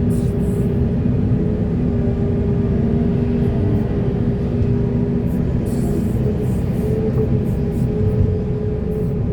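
Heavy earthmoving machine's diesel engine running steadily under load, a low rumble with a steady droning hum, and a few light clanks about six seconds in.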